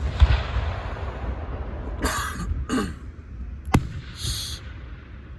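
Fireworks going off: a sharp bang at the start, then a crackling rumble, two short noisy bursts about two seconds in, and another sharp crack near four seconds.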